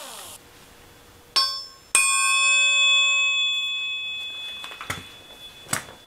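Steel struck twice, about half a second apart. The second, louder blow sets the metal ringing like a bell, with several clear tones that fade over about two seconds. A few lighter metal clinks follow near the end.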